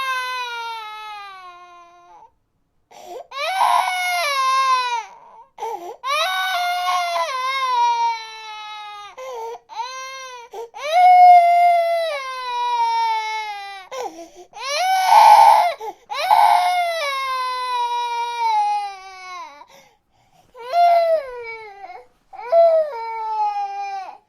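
Infant crying in a run of long wails, each one falling in pitch, with short breaths between them.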